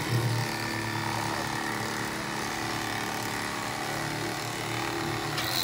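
Corded electric fillet knife running with a steady buzz as its reciprocating blades slice through fish fillets.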